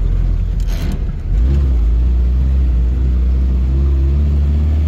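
Off-road vehicle's engine running steadily under way, with a short dip about a second in, then a louder engine note at a slightly higher pitch.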